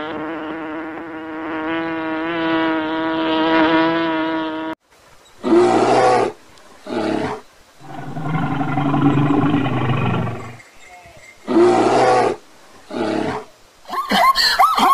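A steady pitched drone for about five seconds, cut off abruptly. Then a series of animal calls: two short ones, a long low call, two more short ones, and a quick run of repeated calls near the end.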